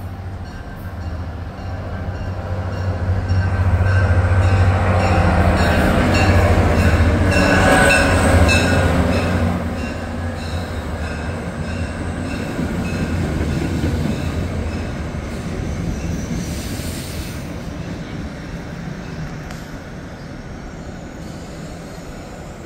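Diesel-hauled passenger train passing through the station: a steady low engine hum with regular wheel clicks over the rail joints, loudest a few seconds in, then fading as it moves away.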